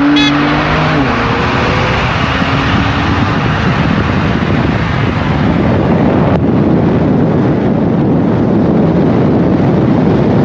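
A short pitched toot like a car horn at the very start, then a steady, loud rush of car and wind noise that drops off sharply at the end.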